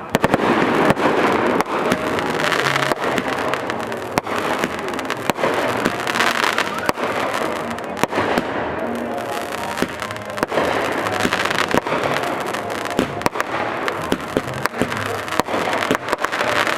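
Fireworks display going off: many sharp bangs and crackles in quick succession throughout, over a steady wash of noise.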